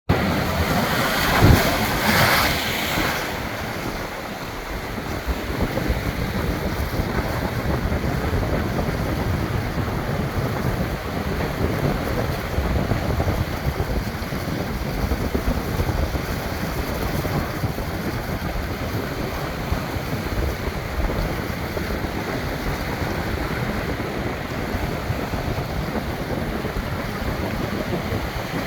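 Pacific Ocean surf washing in steadily, with wind buffeting the microphone. A louder burst comes about a second and a half in.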